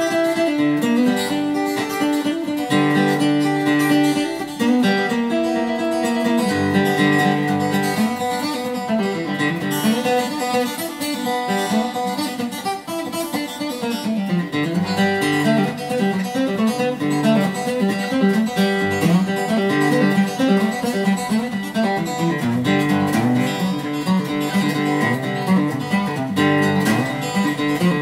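Solo acoustic guitar, a Martin 000-15s all-mahogany flat-top, fingerpicked in a free improvisation: a continuous run of plucked melody notes over ringing bass notes.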